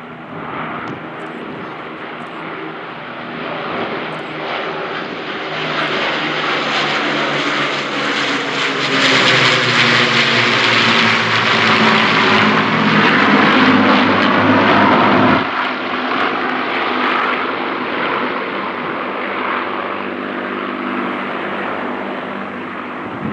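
Piston engines of Lancaster bombers with a Hurricane and a Spitfire flying past in formation: a loud droning that swells as the aircraft approach. The pitch slides down as they pass overhead, then drops off sharply about 15 seconds in and fades as they fly away.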